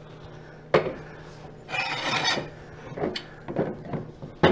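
A long metal bar clamp being fitted to a wooden chair frame. There is a knock, then a rasping metal scrape of about half a second as the clamp slides into place. A few light clicks follow, and a sharper knock comes near the end.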